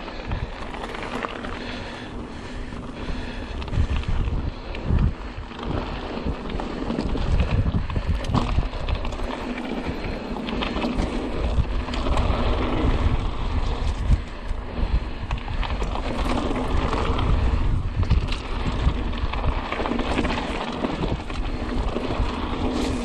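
Mountain bike being ridden along a dirt trail: wind buffets the microphone over a steady rumble of tyre noise, with frequent knocks and rattles as the bike goes over bumps.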